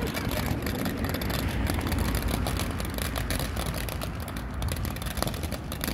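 Ground fountain firework spraying sparks: a steady hiss with dense, rapid crackling.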